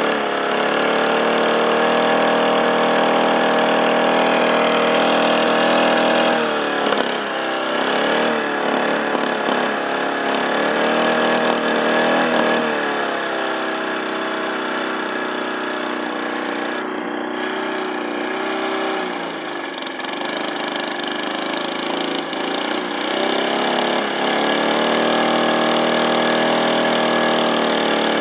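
Small lawn mower petrol engine running hard. Its speed holds high and steady for the first six seconds, then wavers, sags to its lowest about twenty seconds in, and climbs back up near the end.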